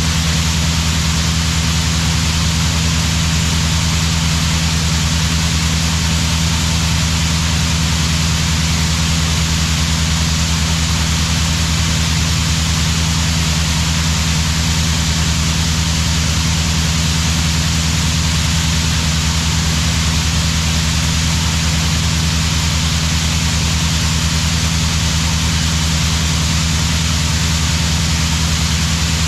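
A heavy diesel farm machine's engine runs steadily under a constant hiss, with no change in speed or load.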